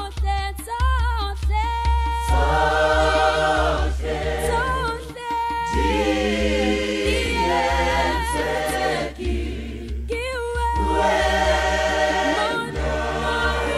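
Background music: a choir singing held chords with wavering vibrato over a deep, steady bass.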